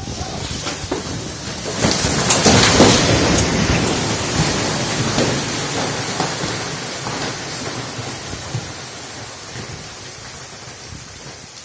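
Landslide: wet earth and rocks pouring down a cut hillside onto a railway track, a rushing rumble that swells about two seconds in, with a few sharp knocks of falling rock, then slowly dies away. Rain falls throughout.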